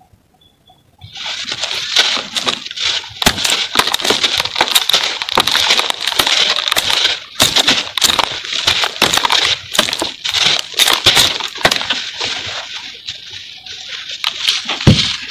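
Dry pressed cement-powder block being crumbled by hands: a dense crackling hiss of falling powder and grit, full of small clicks. It starts after about a second of silence, and there is one dull thump near the end.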